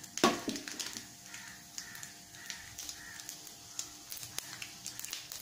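Mustard seeds and urad dal frying in hot oil in a kadai: a quiet sizzle with scattered crackles and pops as the seeds begin to splutter, the sign that the oil is hot enough for tempering. A brief louder noise comes right at the start.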